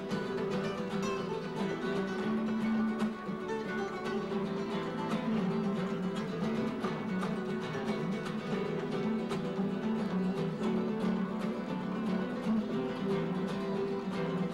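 Acoustic flamenco guitars playing a rumba, a quick, unbroken stream of picked notes.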